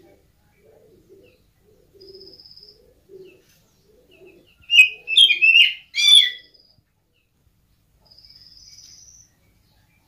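Oriental magpie-robin (kacer) calling: a short burst of four loud, harsh, wavering notes about five seconds in, with thin high buzzy trills about two seconds in and again near the end.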